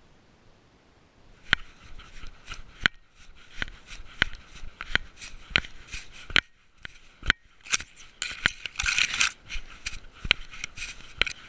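Clicks and knocks in a walking rhythm, about one every two-thirds of a second, from the body-mounted GoPro and its harness jostling as the cat walks, with dry grass and stubble rustling underfoot, loudest about nine seconds in.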